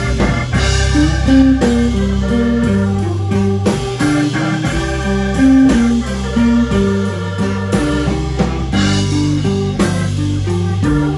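Live blues band playing an instrumental section: a single-note electric guitar lead over bass guitar and a steady drum beat.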